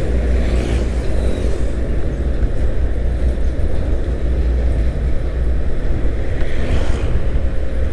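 Steady low rumble of a Yamaha motor scooter being ridden at about 35 km/h: wind on the microphone mixed with engine and tyre noise.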